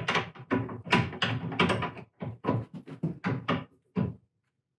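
A fast run of sharp metal clacks, about four a second, as a hand tool works a screw loose on the head of a Powermatic 1150 drill press during disassembly; it stops about four seconds in.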